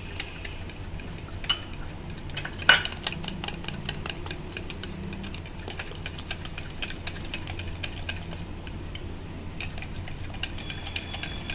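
Metal spoon beating a runny egg, sugar and milk mixture in a glass bowl: quick repeated clinks of the spoon on the glass with a wet sloshing, and one louder knock near three seconds in.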